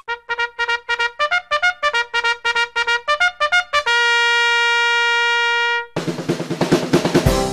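Intro music: a brassy run of quick short notes ending in one long held note. About six seconds in it gives way to a different tune with a steady beat.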